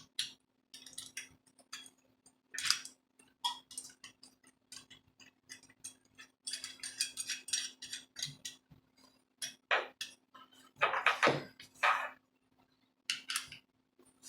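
Irregular clicks and light metallic clinks of a bolt, washers and an Allen wrench being handled and fitted while a blade is mounted on an oscillating multi-tool. The tool itself is not running.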